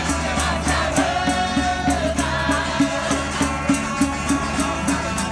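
Street band playing live: guitars strummed over a steady beat, with several voices singing together.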